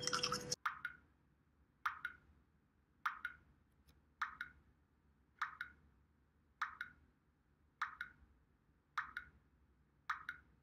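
Water dripping one drop at a time, a steady plop about every 1.2 seconds, each drop short and clear.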